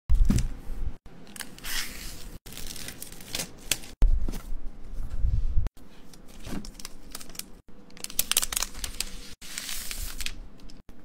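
Packaging being handled in a laptop unboxing: the MacBook's box opened and its protective wrap sheet crinkling and tearing, with a few dull thumps. The sound is broken by several abrupt cuts.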